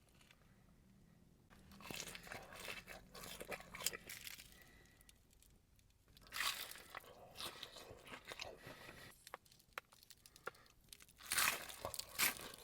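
Close-up crunching and chewing of crisp battered fried fish, the batter crackling in three spells of bites with quiet pauses between.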